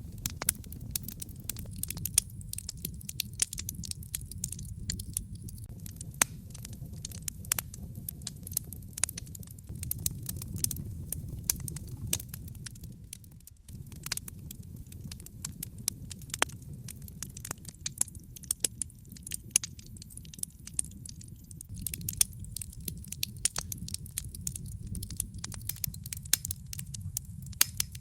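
Wood fire crackling in a fireplace: frequent sharp pops and snaps over a steady low rumble of burning, with a brief lull about halfway through.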